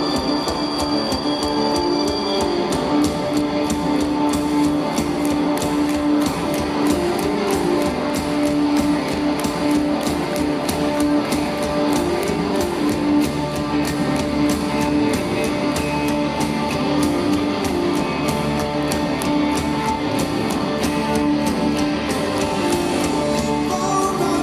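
Live rock band playing an instrumental passage, drums keeping a steady beat under guitar.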